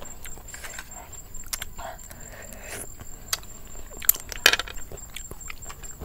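Eating shellfish by hand: small clicks and clinks of clam shells against each other and the metal tray, with a louder pair of sharp clicks and smacks about four seconds in.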